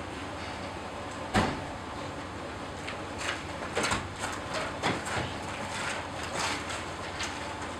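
Scattered clicks and knocks as an SUV's side door is opened, over a steady background hiss. The sharpest click comes about a second and a half in.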